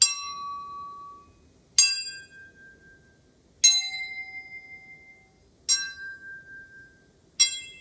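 A pipe struck five times, about two seconds apart, while fingers touch it at different points so that a different harmonic rings out each time. Each strike gives a sharp clang that settles into a clear ringing tone, at a different pitch from strike to strike.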